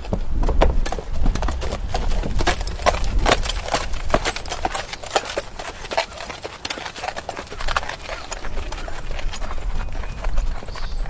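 Horse walking, its hooves clip-clopping in an uneven, continuous run of hoof falls.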